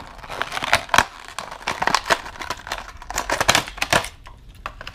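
Plastic-and-cardboard lure packaging being opened by hand: crinkling and crackling with a quick run of sharp clicks and snaps as the clear plastic tray is pulled out of the box. It thins out in the last second.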